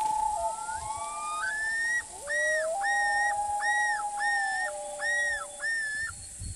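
Common loons calling: one holds a long wailing note that steps up and down in pitch, while from about two seconds in another gives a yodel of six repeated rising-and-falling phrases.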